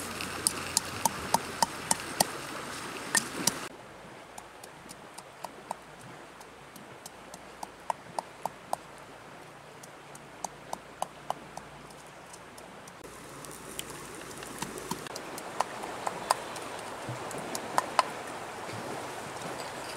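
Wooden pestle pounding chillies in a small clay mortar: sharp taps about three a second at first, then after a sudden drop in the background noise, softer taps in short scattered runs.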